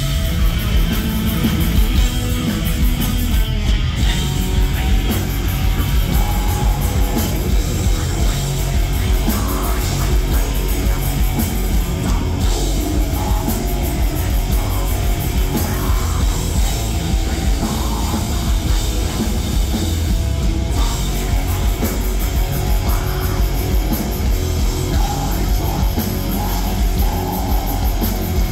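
A black metal band playing live: distorted electric guitars, bass guitar and a drum kit, loud and continuous, heard through the stage PA from the crowd.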